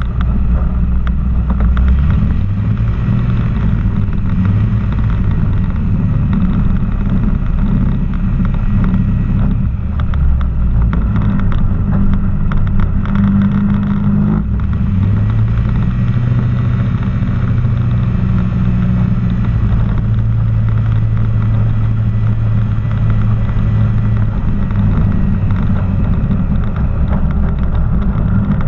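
Challenger II ultralight aircraft's engine and propeller running steadily as the aircraft rolls along the runway. The engine note shifts about halfway through and then holds a steady tone.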